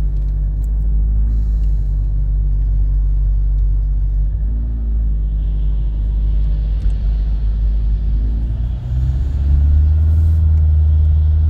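Renault Laguna III's 2.0 dCi four-cylinder turbodiesel and road noise heard from inside the cabin while driving on the motorway, a steady low drone; the engine is still a little cold. About nine seconds in the drone gets louder and deeper.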